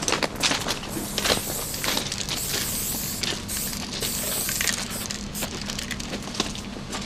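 Footsteps crunching on loose gravel, broken by a few longer hissing bursts about two and three and a half seconds in.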